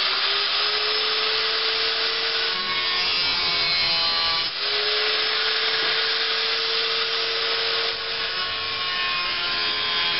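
Electric angle grinder running with its disc grinding the edge of a sheet-steel panel: a harsh, steady grinding noise over a constant motor whine. It briefly dips about four and a half seconds in, then carries on.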